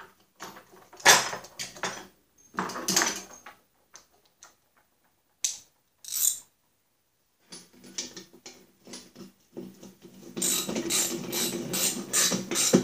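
Socket ratchet clicking in short runs, with clinks of metal tools and hardware, as the nuts are run down on the bolts that hold a Snapper mower-deck spindle. A longer run of quick clicking near the end.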